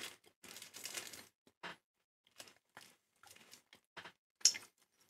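Plastic snack wrapper of a Grzeszki wafer bar crinkling in short, uneven bursts as it is handled and a piece is broken off, with one louder crackle about four and a half seconds in.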